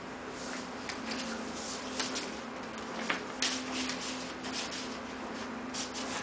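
Packaging being handled during an unboxing: irregular paper-like rustling and crinkling with a few sharp light clicks and taps, over a faint steady hum.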